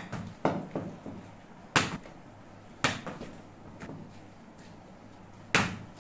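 Sharp knocks of a ball being struck by a cricket bat and bouncing off the floor and walls of a small room, echoing briefly. There are four loud knocks, the first three about a second apart and the last after a pause, with lighter bounces in between.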